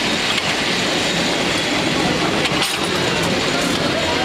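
San Francisco cable car running along its track: a steady rolling rumble of the car on its rails, with a few short clanks about two and a half to three and a half seconds in.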